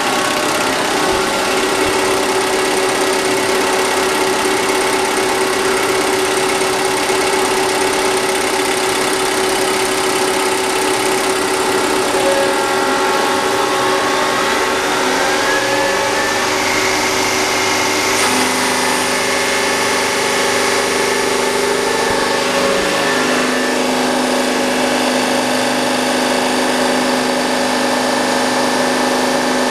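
Bosch injection-pump test bench running a four-cylinder Mercedes M-size inline diesel injection pump: a steady mechanical hum and whine. About halfway through, the pitch climbs and steps up as the pump is taken from low idle toward full throttle, then shifts again a few seconds later and stays there.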